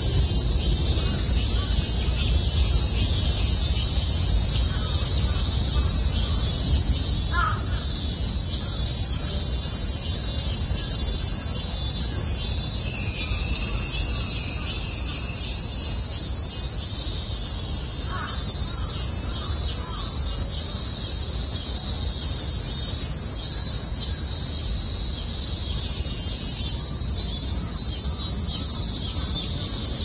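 Summer cicada chorus: a steady, high-pitched shrilling drone, with some pulsing calls running through it. Two brief lower calls break in, about a quarter of the way in and again past halfway, over a low steady rumble.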